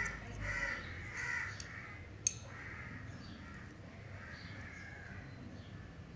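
Crows cawing, a few caws in the first second and a half and more about four to five seconds in, with a single sharp click a little over two seconds in.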